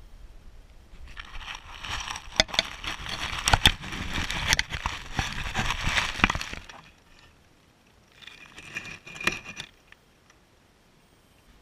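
Dry hay rustling and crackling close against the camera, full of sharp little snaps, in a long spell and then a shorter one.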